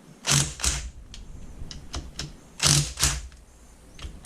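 Socket ratchet clicking as the 10 mm bolts holding a Honda 400EX oil pump are loosened. It gives two pairs of sharp clacks, a second or two apart, with lighter ticks between.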